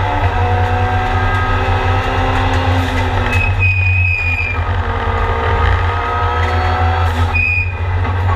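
Mitsubishi Lancer Evolution time attack race car's turbocharged four-cylinder engine under hard acceleration, heard from inside the cabin. The pitch climbs steadily, drops briefly about three and seven seconds in with a short high whistle, then climbs again.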